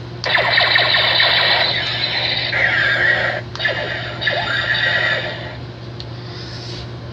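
Toy space pistol's electronic laser-blast sound effect, fired twice in a row: a loud, squealing electronic zapping with sweeping pitch. It breaks briefly about three and a half seconds in, then dies away about five and a half seconds in.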